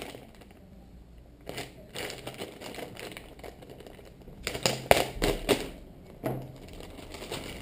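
Plastic packaging bag of a GoPro Roll Bar Mount crinkling and crackling as it is handled and opened, in irregular bursts, loudest in a quick cluster of crackles about five seconds in.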